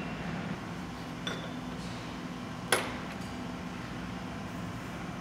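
A steady low hum with a faint metal tap about a second in and one sharp metallic clink just under three seconds in: steel tooling and a long torque wrench on a spindle lock nut being torqued to 300 foot-pounds.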